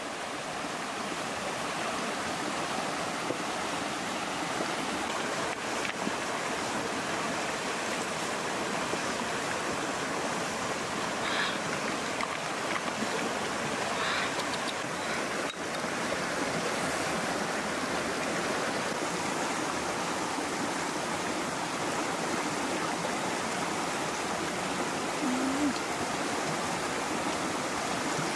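Rocky mountain river rushing over stones: a steady rush of water, with a few faint clicks about halfway through.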